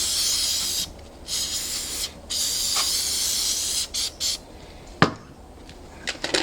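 Aerosol can of Pyroil lock de-icer spraying into a frozen padlock keyway in several hissing bursts. A sharp click comes about five seconds in, followed by a few lighter clicks near the end.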